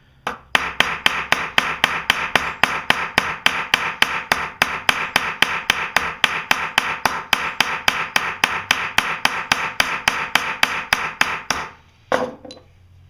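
Ball-peen hammer rapidly and evenly tapping, about four or five light blows a second, as it peens over the end of a roofing nail to set it as a rivet through leather and a metal plate. The tapping stops about a second before the end.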